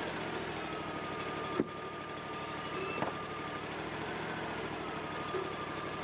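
Woodmizer LT40 portable sawmill's engine idling steadily, with two short knocks, about a second and a half and three seconds in.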